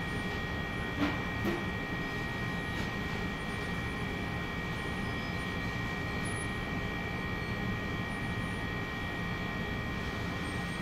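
Steady background hum and hiss with a few constant tones, and two light knocks about a second in.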